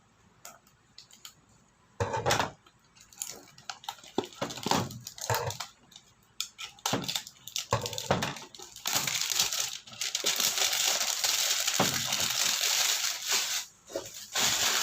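A beauty-product box's packaging being torn open by hand: scattered crinkling and handling clicks, then a long continuous ripping sound of about four seconds starting around nine seconds in, followed by a few more rustles.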